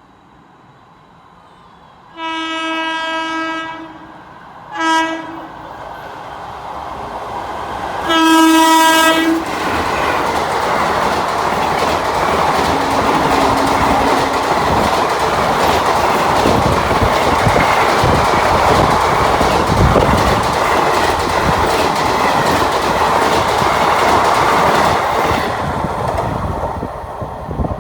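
Indian Railways express train sounding its horn three times: a long blast, a short one, then the loudest as it arrives. It then rushes past with its wheels clattering over the rail joints, the noise easing off near the end.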